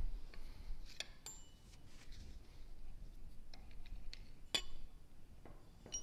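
Metal tools and shock parts clinking against each other and the bench vise: a few sharp clinks, some with a short high ring, the loudest about four and a half seconds in.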